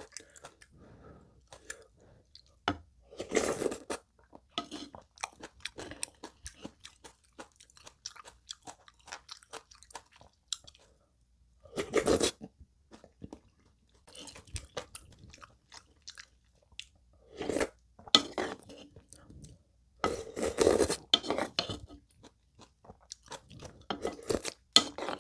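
Close-miked eating: wet chewing and small mouth clicks, broken by several louder slurps of spicy soft-tofu ramen broth from a spoon.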